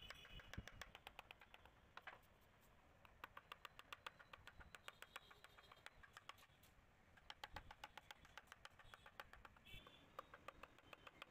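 Faint, quick taps of a hammer on a steel wood chisel, several a second with short pauses, as the chisel cuts a carved pattern into a wooden door panel.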